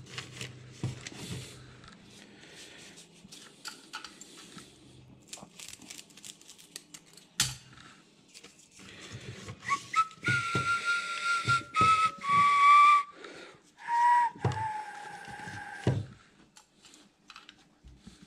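Someone whistling a few held, high notes that step downward in pitch, about ten seconds in and lasting around six seconds. Before it there are faint clicks and rustles of things being handled on the table.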